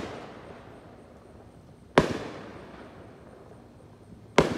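Aerial fireworks going off with sharp bangs: one right at the start, another about two seconds in and a third near the end, each trailing off in an echo that dies away over a second or so.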